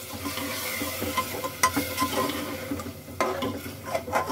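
A metal spoon stirring watery curry gravy in an aluminium pressure cooker: it scrapes along the pot and gives several sharp clinks of metal on metal.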